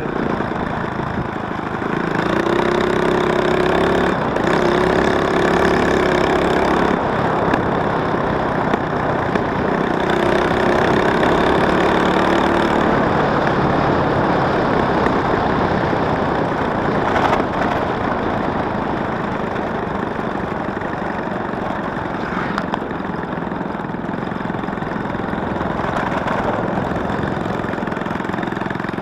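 Four-stroke underbone motorcycle engine running under way on freshly changed oil, heard over wind and road noise. The engine note stands out under load twice in the first half, then settles into steady cruising.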